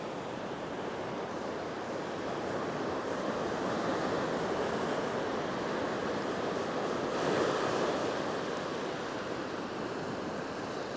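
Ocean surf washing up a sandy beach, a steady rush that swells to its loudest about seven seconds in and then eases.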